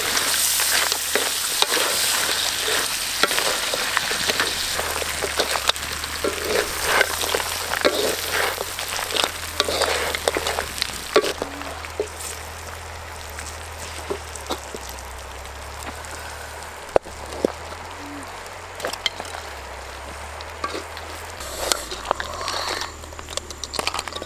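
Crabs and eggs frying in a wok over a wood fire: a steady sizzle, with the spatula scraping and knocking against the pan as the crabs are stirred. The sizzle is loudest in the first half and quietens about halfway through, leaving scattered stirring clicks.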